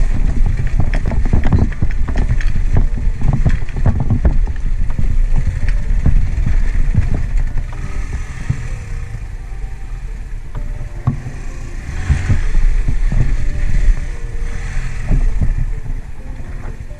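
Motorcycle engine running under load as the bike crawls over loose rock, with frequent knocks and rattles from stones and the bike jolting. It is loudest in the first half, eases for a few seconds, then rises again about twelve seconds in.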